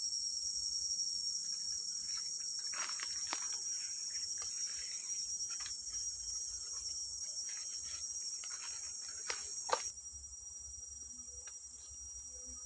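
Steady, dense high-pitched chorus of rainforest insects, with intermittent rustling and crackling and two sharp snaps about nine seconds in; the chorus drops abruptly in level near the end.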